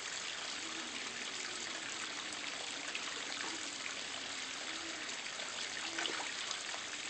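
Steady trickle of running water in a koi pond, with a brief louder burst about six seconds in.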